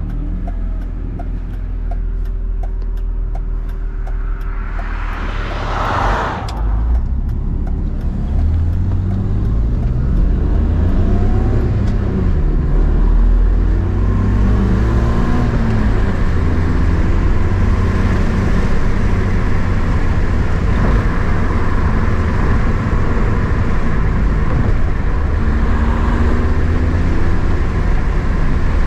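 BMW inline-six engine pulling through the gears on the road, its pitch climbing and dropping again at each shift. About six seconds in there is a brief rushing whoosh.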